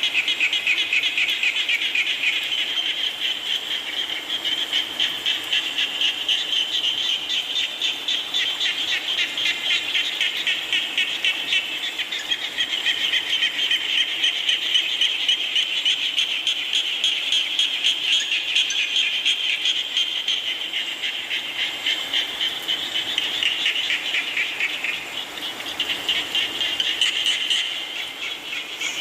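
A chorus of many frogs calling together, a dense, continuous rapid trilling that swells and eases slightly without ever stopping.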